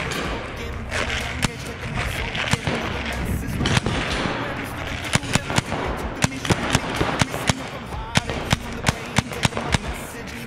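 Paintball markers firing: sharp, irregular pops, coming thick and fast at about two or three a second through the second half.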